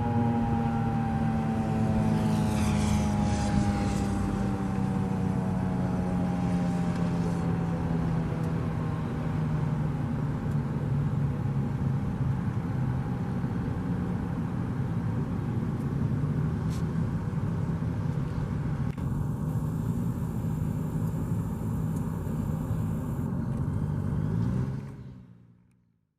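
Federal Signal 2001-SRNB outdoor warning siren winding down after its one-minute alert, its tone sinking slowly in pitch over a steady low rumble. The sound fades out near the end.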